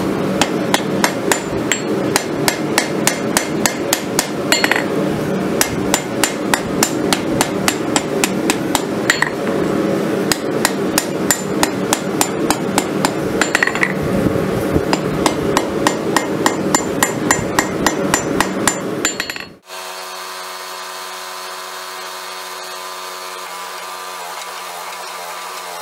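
A hand hammer strikes a red-hot steel blade on an anvil in a fast, steady run of blows as the kukri blank is forged out. The blows stop suddenly about two-thirds of the way through, and a steady hum takes over.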